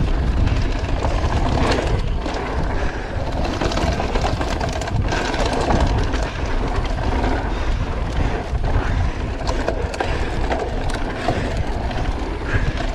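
Wind buffeting the camera's microphone over the rumble of an electric mountain bike's tyres on a rough dirt trail at speed. Frequent knocks and rattles from the bike run throughout.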